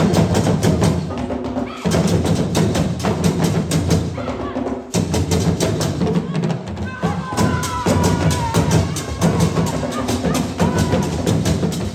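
An ensemble of tall African hand drums struck with bare hands, beating a fast, busy rhythm, with short breaks about two and five seconds in.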